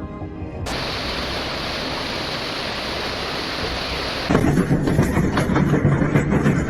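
Storm noise: a steady rushing hiss comes in suddenly about a second in. About four seconds in it turns louder and rougher, with a deep, buffeting rumble underneath.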